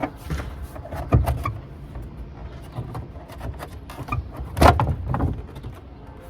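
Plastic tail-light assembly of a 2013 Kia Soul being pulled off the car body by hand: a run of clicks and knocks, with a louder knock about a second in and the loudest clatter at about four and a half seconds.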